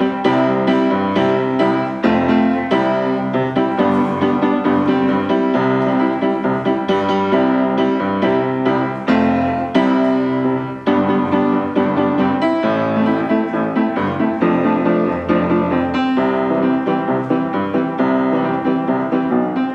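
Background music played on piano, a steady stream of quick notes with a low bass part.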